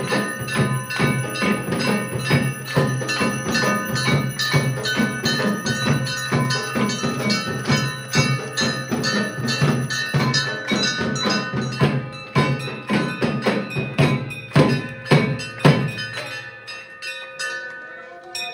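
Temple bells clanging and a drum beaten rapidly for the aarti. Near the end the beating stops and the bells ring out and fade.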